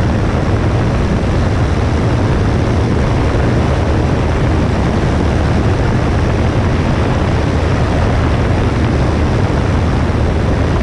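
Cessna 172S's four-cylinder Lycoming engine and propeller droning steadily, mixed with a loud, even rush of air over the wing-mounted camera.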